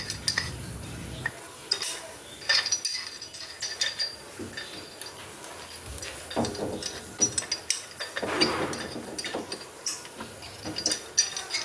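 Scattered clicks and light clinks of tools and parts being handled while opening up a washing machine, with a low hum that stops about a second in and a brief scraping rustle about eight seconds in.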